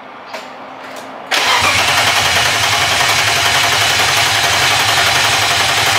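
Swapped-in straight-six engine in a BMW E30 being cranked over on the starter, kicking in suddenly about a second and a half in and turning over steadily with an even pulsing beat. It does not catch: the tank is dry and the fuel pump is getting no power.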